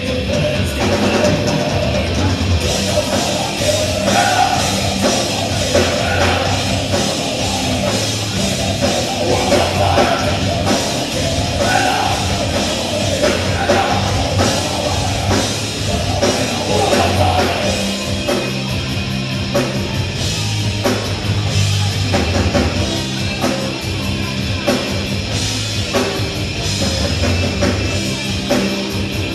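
A loud live heavy rock band, with distorted electric guitars, bass and drum kit, and a singer's voice over the first part before the band carries on without vocals.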